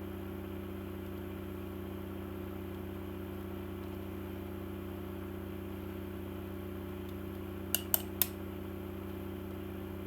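Steady low hum in a small room, broken about eight seconds in by three quick, sharp clicks from handling the CD box set's disc packaging.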